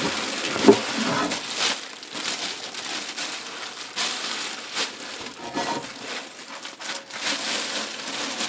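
Thin plastic bag crinkling and rustling, in uneven crackles, as rubber-gloved hands peel it open from around a cast iron pan that has soaked for hours in oven cleaner.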